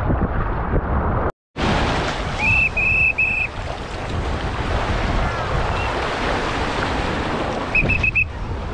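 Wind buffeting the microphone over the wash of small waves at the shoreline, cut off briefly about a second and a half in. Two groups of three short high-pitched squeaks sound, about two and a half seconds in and again near the end.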